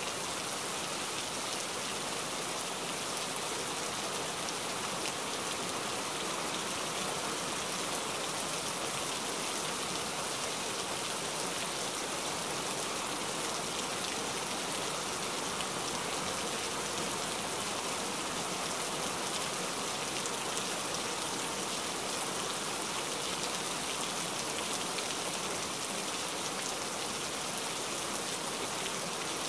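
Steady rain falling, a dense even hiss of drops on surfaces with no thunder.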